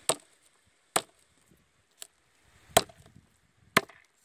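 Chef's knife chopping through a fried chicken leg onto a wooden cutting board: five sharp knocks about a second apart, the third lighter than the rest.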